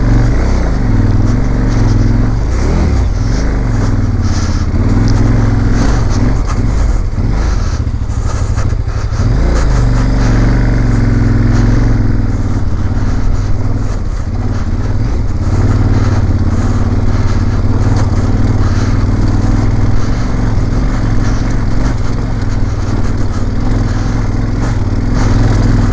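Motorcycle engine running under way on a dirt track, its note rising and falling with the throttle, over steady wind and road noise on the microphone.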